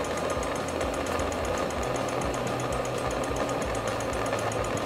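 MAPP gas hand torch burning with a steady hiss, with a fast, even flutter of about six beats a second.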